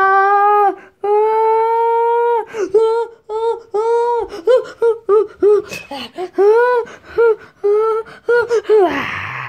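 A person's high-pitched voice crying out without words: two long held cries, then a run of short rising-and-falling whimpering cries. A short rustle of handling noise comes near the end.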